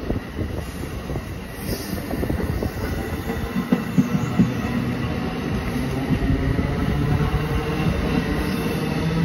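NJ Transit bilevel passenger coaches rolling past close by, their wheels clattering over the rail joints. A steady low hum comes in about three and a half seconds in and grows slightly louder.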